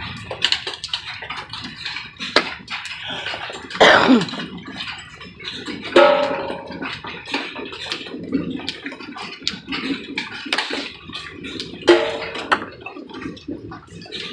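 Hail falling, hailstones striking the ground and nearby surfaces in irregular clicks and taps, with three louder hits about 4, 6 and 12 seconds in, the last two with a brief ringing.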